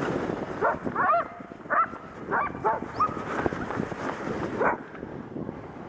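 Sled dogs in harness giving short high yips and whines, about half a dozen calls, over a steady rushing noise.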